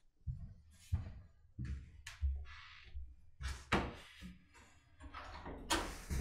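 Footsteps on a wooden hallway floor with a string of separate knocks and thuds, the loudest near the end.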